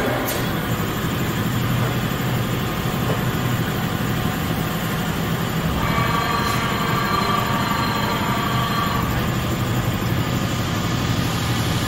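Steady hum and rumble of running shop machinery, with a faint high whine from about six to nine seconds in.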